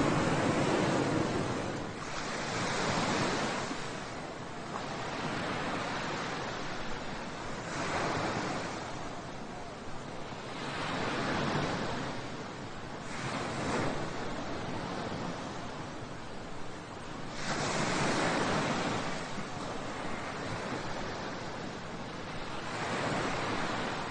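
Sea waves breaking and washing in, a steady rush of surf that swells every few seconds as each wave comes in, with some wind on the microphone.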